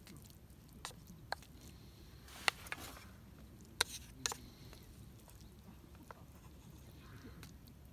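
Wooden spatula scraping and knocking against an iron skillet as cooked ground meat is scooped out of it: a handful of separate sharp clicks and knocks, the loudest about two and a half and four seconds in.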